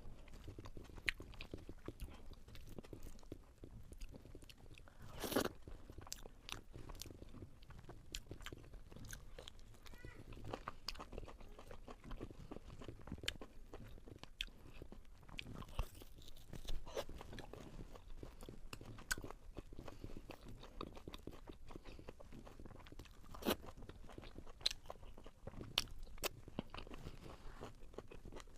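A person eating crunchy food close to the microphone: crisp bites and crunching chews throughout, with louder crunches about five seconds in and again about twenty-three seconds in.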